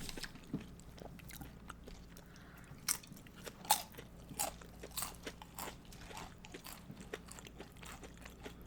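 Tortilla chips of loaded nachos crunching as they are bitten and chewed: a string of crisp, sharp crunches, loudest and thickest in the middle.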